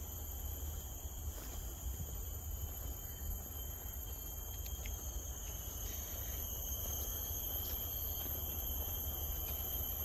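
Quiet tropical forest ambience: a steady, high-pitched insect chorus of several thin continuous tones, over a low rumble with a few faint ticks.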